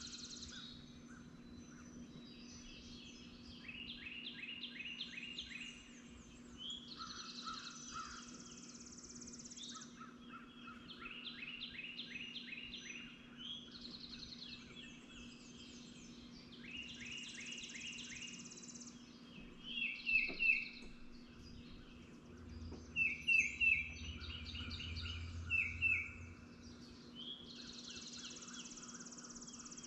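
Several birds singing over one another: repeated trilled and buzzy song phrases. About two-thirds of the way through, louder harsh calls come in short series.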